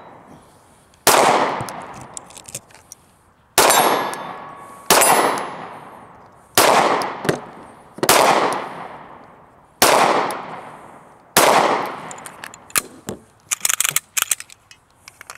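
Seven 9mm pistol shots from a Sig Sauer P320 X-Carry, fired one at a time about one and a half seconds apart, each ringing out with a long echo across the range. Over the last few seconds comes a run of small metallic clicks and clacks as the pistol is handled.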